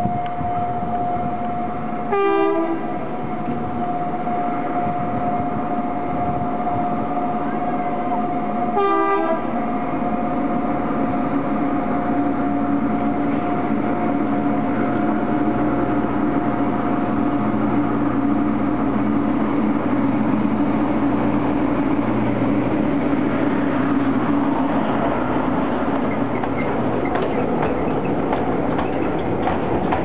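Two short horn blasts from a small DIEMA diesel locomotive, about two and nine seconds in, over a steady high tone. The locomotive's diesel engine drone then builds as the sugar-cane train approaches. Near the end, the loaded cane wagons clatter past on the narrow-gauge track.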